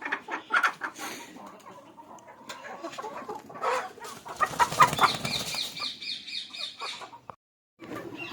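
Chickens clucking and flapping their wings, with a louder flurry about halfway through followed by a quick run of repeated high chirping calls.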